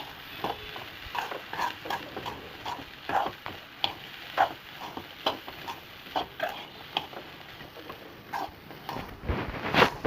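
A spoon stirring and scraping boiled black chickpeas through spice masala in a pan, short uneven strokes about two or three a second.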